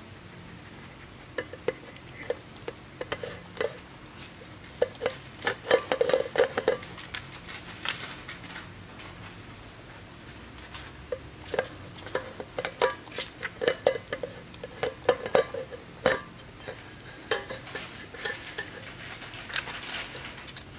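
Pembroke Welsh Corgi licking its emptied stainless steel food bowl and the feeding tray under it, the bowl clinking and knocking against the tray as its tongue and nose push it about. The clinks come in irregular clusters, with a quieter stretch in the middle.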